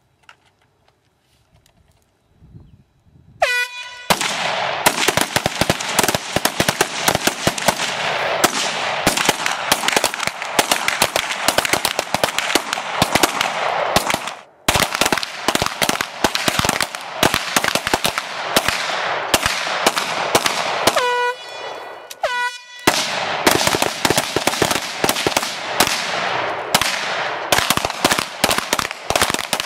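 An electronic shot-timer buzzer sounds about three seconds in, and a squad of shooters opens fire at once with rifles and pistols: a dense, overlapping crackle of rapid shots. The firing briefly thins about halfway through, two more buzzer beeps sound about twenty-one and twenty-two seconds in, and the volley of shots starts again.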